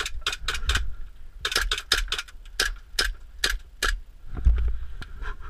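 Airsoft guns firing single shots, with BBs striking the coach's interior: a string of sharp, irregular clicks, several a second in clusters, and a low thump about four and a half seconds in.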